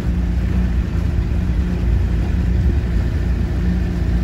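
A boat's outboard motor running steadily at an even speed.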